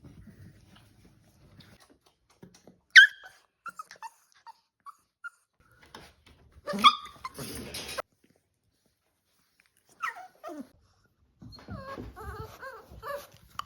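Staffordshire bull terrier puppies yelping and whimpering in separate short calls. There is a sharp yelp about three seconds in, then small high squeaks, then a louder, rougher call around seven seconds. A whine falls in pitch near ten seconds, and wavering whines come near the end.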